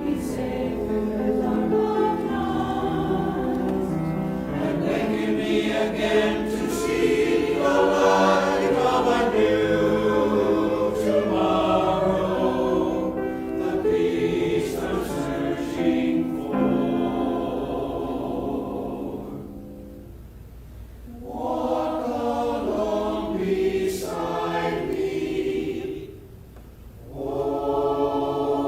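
Choir singing, phrase by phrase, with two short breaks between phrases in the second half.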